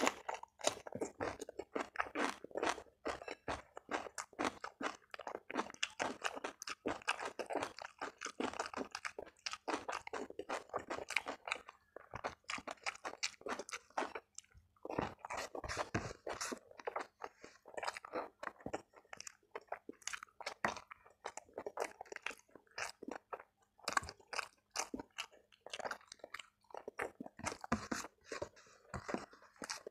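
Close-miked chewing of food by hand-fed mouthfuls, a steady run of crisp crunches bite after bite, with brief lulls about twelve and fourteen seconds in.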